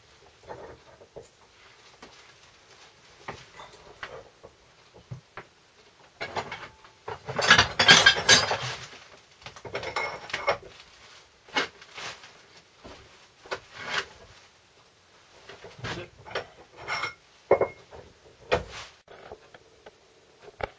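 Scattered metallic clinks and knocks of small steel parts handled in a hand-lever arbor press while a pin is pressed into a tool, with a louder clatter about eight seconds in.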